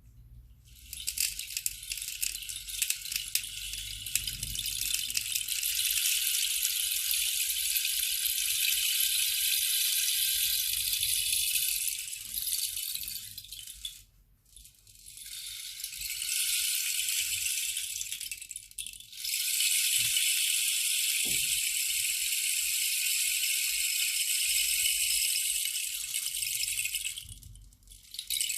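A rain-effect percussion instrument, such as a rain stick, poured slowly three times: a long, dense trickle of tiny pebble-like rattles, about thirteen seconds, then four, then eight, with short pauses between them.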